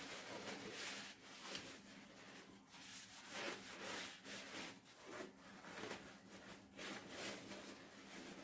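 Dry paper towels rustling and crumpling as they are handled: a faint, irregular rustle.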